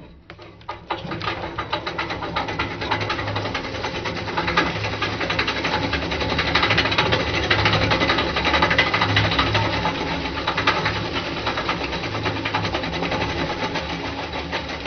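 Reel lawn mower running through tall grass, its spinning reel blades making a fast, continuous clatter of clicks that starts about a second in, over a steady low hum.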